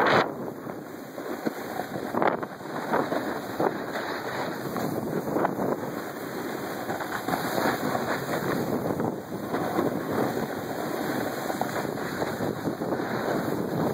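Wind buffeting the microphone of a camera carried down a groomed ski run, mixed with the hiss and scrape of edges sliding over packed snow.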